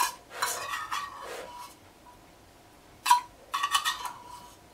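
Metal spoon scraping and clinking against a cast-iron skillet as fried rice is scooped from it, in two short bouts, one at the start and one about three seconds in, some clinks leaving a brief ring.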